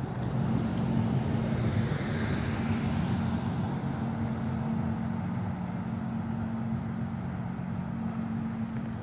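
Traffic noise: a steady low motor hum with road noise, and a vehicle passing that swells about two seconds in and fades away.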